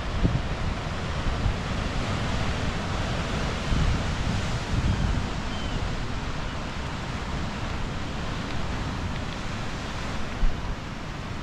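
Ocean surf washing and breaking against coastal rocks, mixed with wind buffeting the microphone in gusts, with a short thump near the end.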